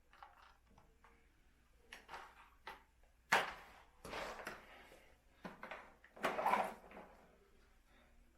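A string of short, irregular sliding and knocking handling noises, loudest about three seconds in and again just past six seconds.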